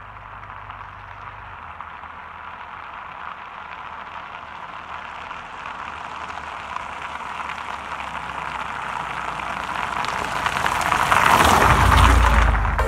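A car approaching on an asphalt road and driving right over a low-placed camera: tyre noise and engine hiss grow steadily louder, peaking with a deep rumble as the car passes overhead near the end.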